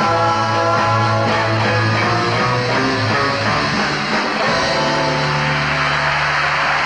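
Rock music with electric guitar and bass holding long notes; about halfway through the low bass note shifts up.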